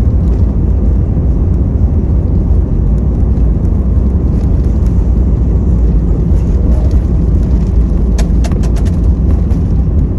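Steady, loud, deep roar heard from inside the cabin of an Airbus A320 rolling out on the runway just after landing. The sound comes from its engines, the airflow and the wheels on the runway. A few short rattles come about eight seconds in.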